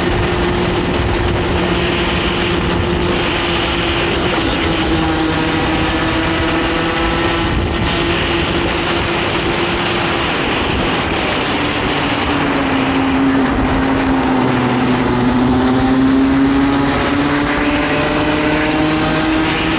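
Comer 50cc two-stroke kart engine running flat out during a race, with steady wind and road noise. Its pitch holds steady at first, dips for a few seconds past the middle, then climbs back as it picks up speed.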